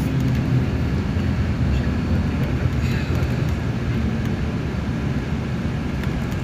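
Steady low drone of a moving bus's engine and road noise, heard from inside the cabin.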